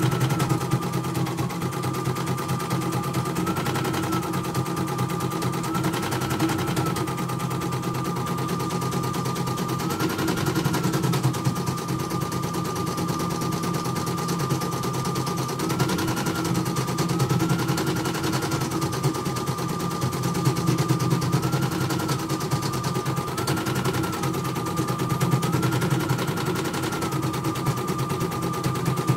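CNY portable computerized embroidery machine stitching a design: a fast, even run of needle strokes over a steady motor whine that steps up in pitch briefly about nine times as the hoop carriage shifts. It runs smoothly with no thread breaks.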